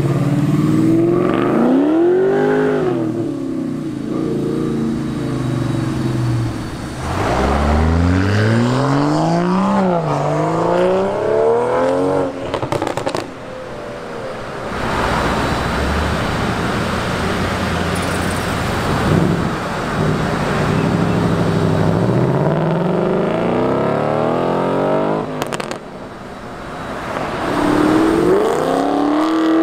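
Several cars in turn accelerating hard past, engines revving up with pitch climbing steeply, dropping back and climbing again as they shift up.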